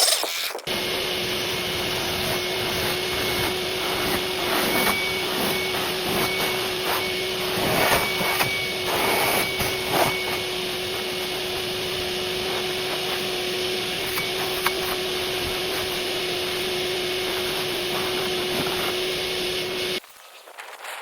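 Pressure washer running and spraying: a steady hiss of the water jet over a steady hum. It starts sharply just after the opening and cuts off abruptly about a second before the end.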